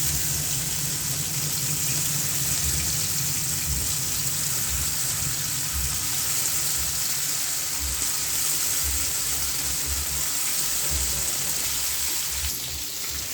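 Small marinated fish shallow-frying in hot oil in a pan: a steady sizzle.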